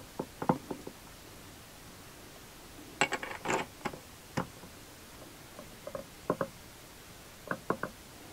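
Light metallic clicks and clinks of differential parts being handled and seated in the housing: a few near the start, a quick cluster about three seconds in, then pairs and small groups of clinks toward the middle and end.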